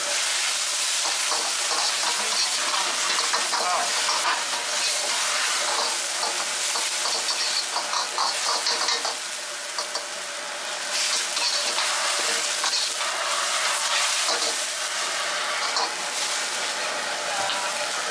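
Leafy greens sizzling as they are stir-fried in a wok over a high gas flame, with a metal ladle scraping and clanking against the wok. The sizzle eases briefly around the middle.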